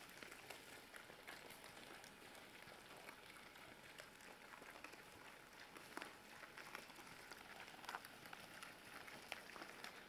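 Near silence: faint outdoor background hiss with scattered light ticks and clicks.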